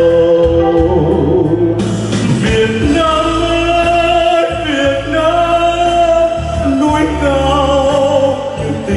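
A male singer and an electronic keyboard performing a slow Vietnamese song through loudspeakers, the melody held in long notes over a steady bass.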